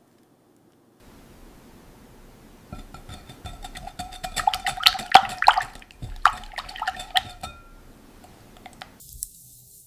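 Rapid, irregular clinks of a utensil against a ringing dish. They build up to a peak in the middle and thin out toward the end.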